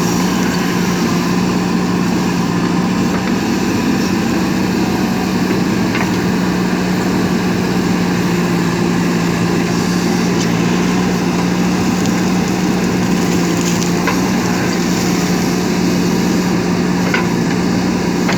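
JCB 3DX backhoe loader's diesel engine running at a steady speed, with a few faint clicks or knocks over it.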